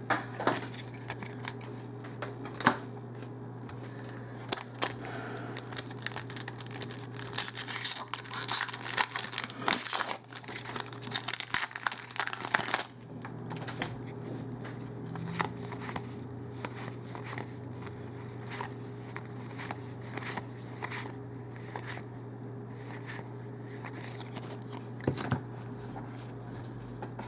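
Foil wrapper of a Magic: The Gathering booster pack crinkling and tearing open, with cards being handled; the crinkling is densest and loudest in the middle, with scattered crackles before and after. A steady low hum runs underneath.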